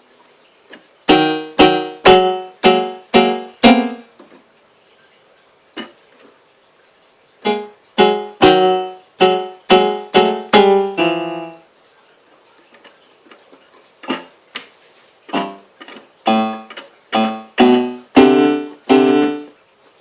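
Notes and chords played on a keyboard instrument in three short runs, each note struck and then dying away, with pauses of a few seconds between the runs.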